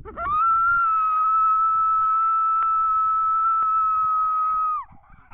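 Predator call sounding one long, steady high-pitched howl that swoops up at the start and drops off near the end, used to stop or draw in a coyote.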